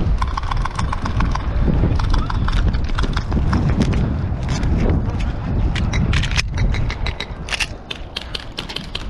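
Airsoft guns firing: a quick run of regular clicks early on, then scattered sharp shots and snaps in clusters, over a constant low rumble of wind and handling noise on a body-worn action camera.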